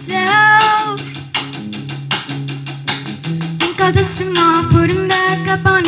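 A small rock band playing live: a girl singing lead through a wireless microphone and amplifier, over electric guitar and a drum kit keeping a steady, fast beat on the cymbals.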